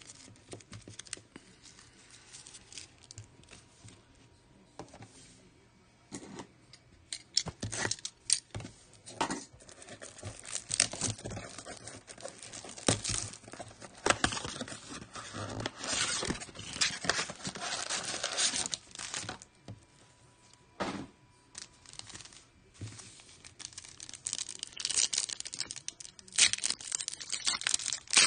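Hands opening a cardboard trading-card blaster box and handling the foil card packs inside: tearing cardboard and crinkling foil wrappers. The sound comes in irregular bursts with short quiet gaps, busiest in the middle and near the end.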